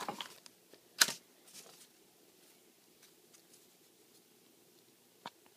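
Paper CD sleeves and papers rustling and sliding as a hand shuffles them on a desk, with one sharp rustle about a second in, then mostly quiet with a single click near the end.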